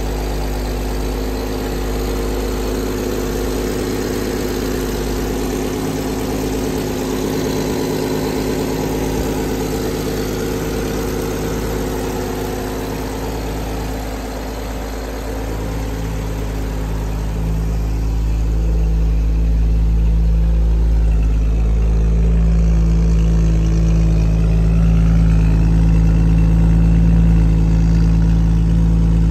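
Holden EJ Special's grey-motor straight-six idling steadily. After about 17 s the sound grows louder and deeper as the exhaust note at the tailpipe takes over.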